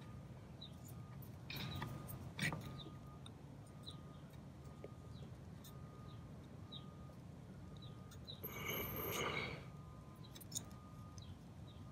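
Plastic wiring connectors being handled and fitted together: faint clicks and rustling, with a longer rustle about nine seconds in. Faint short high chirps repeat in the background.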